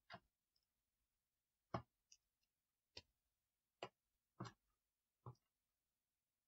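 Small plastic Lego pieces clicking as they are pressed together and handled: six quiet, sharp clicks spaced about a second apart.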